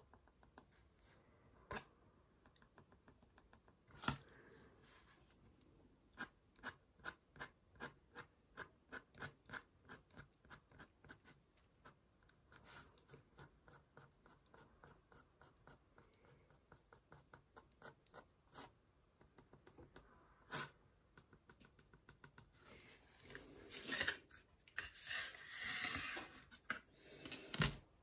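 Fine-tipped ink pen drawing quick short strokes on watercolour paper: a faint run of light scratches, about three a second through the middle, with a few sharper taps. Near the end there is a longer, louder rubbing and rustling as the ruler is slid across the paper.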